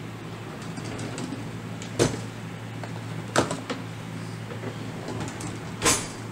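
Wooden kitchen drawer pulled open with a knock about two seconds in, a clink of cutlery as a metal spoon is taken from the plastic cutlery tray, and the drawer pushed shut with a loud thump near the end. A steady low hum runs underneath.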